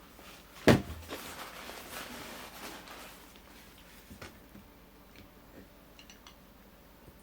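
A single sharp knock less than a second in, followed by a few faint clicks and ticks.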